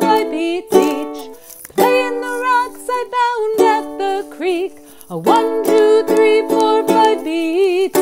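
Ukulele strummed in a steady rhythm, with a wordless vocal line wavering over the chords.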